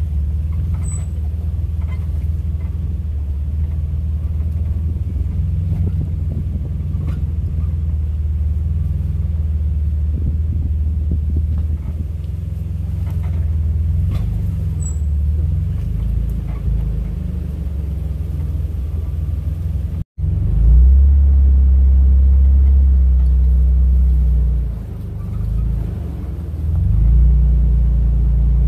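Steady low rumble of a car on the move. It drops out for an instant about two-thirds of the way through and comes back louder.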